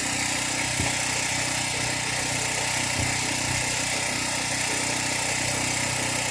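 An engine running steadily at a constant low speed, with two faint knocks, one about a second in and one about three seconds in.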